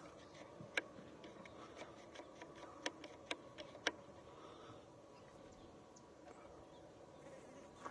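Quiet background hiss with a handful of faint, sharp clicks and taps, all in the first half.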